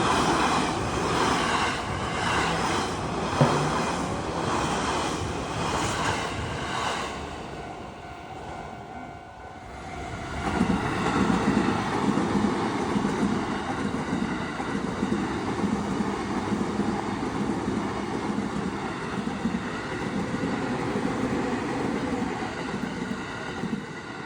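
Trains passing over a railway level crossing. A rhythmic clatter of about two strokes a second runs for the first several seconds, dips about eight seconds in, then a steady rumbling pass follows until near the end.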